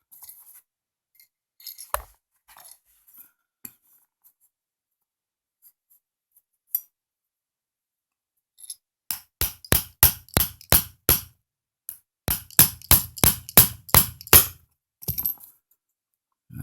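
Small hammer tapping a tiny tapered roll pin into an AR-15 charging handle latch: two runs of quick, sharp metallic taps, about four a second, after a single knock. The pin is tight and not yet lined up with the hole on the far side.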